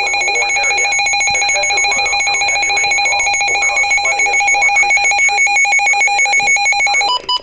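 Emergency weather alert tone: a loud, steady electronic alarm with a rapid warble in its upper pitch, switching briefly to a different tone near the end before it cuts off.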